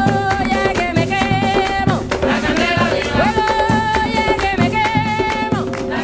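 Colombian folk drum ensemble playing: hand drums and rattles keep a steady, driving beat while a sustained melody line with bending pitch carries over it.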